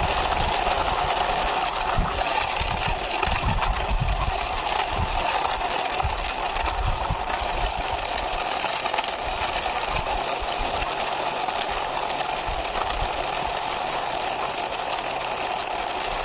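Toy animal truck pushed along by hand: a steady whirring rattle of its small wheels, with a few low knocks in the first half.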